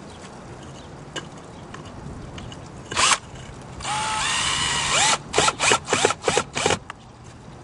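Cordless drill driving a 4-inch screw through a tile ridge cap into the wooden ridge board: a short burst, then a steady run of about a second, then a string of quick trigger pulses, the motor whine rising with each one as the screw seats.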